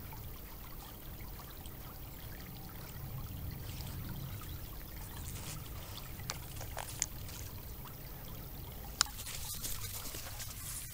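Steady low rush of flowing river water on a trail camera's microphone, with a few faint sharp clicks and brief rustling as a river otter moves close past the camera.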